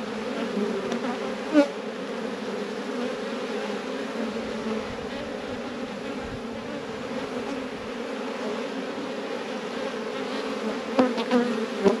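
Honeybees of a small swarm colony buzzing in a steady hum while their hive is opened for inspection without smoke; the colony stays calm. A couple of short knocks sound about a second and a half in and just before the end.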